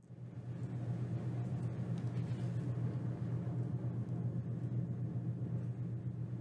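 Steady low background hum with a faint hiss, fading in at the very start after a brief cut to dead silence.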